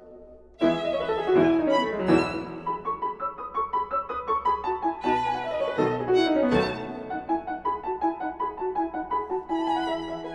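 Background music: a violin playing quick runs of notes, starting about half a second in.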